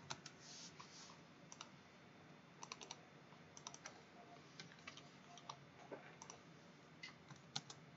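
Faint, scattered computer keyboard and mouse clicks, a few at a time about once a second.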